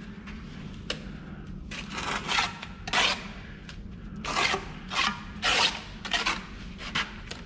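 Steel bricklaying trowel scraping and pressing mortar into the frogs of a course of bricks, a string of short rasping scrapes about every half second to a second, with a sharp tap about a second in.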